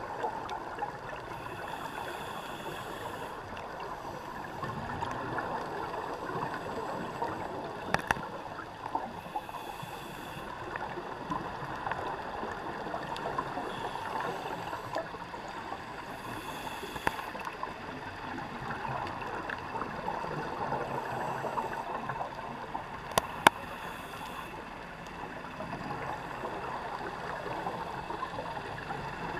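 Underwater rush of water around the camera, with faint hissing bursts every few seconds. A few sharp cracks, the loudest about a third of the way in and again twice close together about three quarters through, from the loggerhead sea turtle crunching the conch shell in its jaws.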